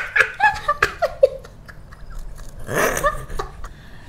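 A man and a woman laughing and giggling as he bites into a fried banana snack, with short clicks of biting and chewing in the first second or so.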